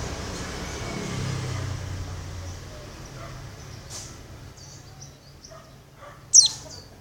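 Female white-eye (pleci) giving one loud, brief, sharply falling high-pitched call about six seconds in, after a few faint high chirps. A passing vehicle's low rumble fades away over the first few seconds.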